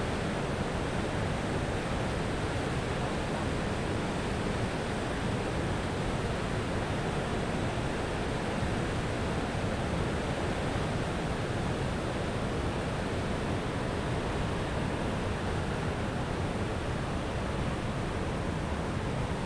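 Winooski River in flood, its brown white water rushing over a dam: a steady, unbroken rush of water.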